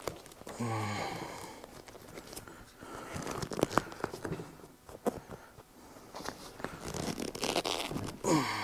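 New seat cover being pulled and stretched over a bucket seat's frame, its material rubbing and rustling against the seat, with a few sharp clicks.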